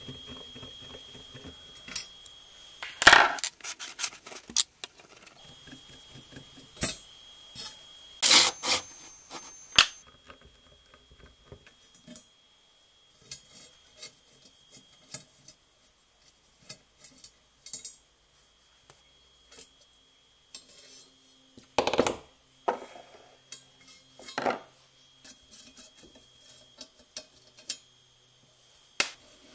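A screwdriver working the screw out of a brass hinge on a nautical clock's bezel: scattered small metallic clicks and scrapes, with four louder clanks of metal on brass spread through the stretch.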